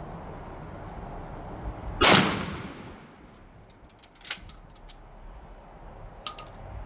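A single shot from a 12-gauge Stevens shotgun with a full-choke barrel, one loud blast about two seconds in with a tail that dies away over about a second. Two short sharp clicks follow a couple of seconds later.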